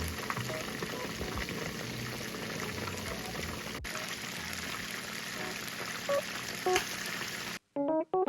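Chicken karaage deep-frying in oil: a steady sizzle with small crackles. It cuts off suddenly near the end.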